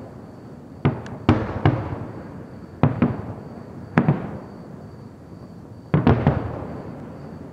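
Distant fireworks display: aerial shells bursting with about eight sharp bangs, some in quick pairs, each trailing off in a rolling echo.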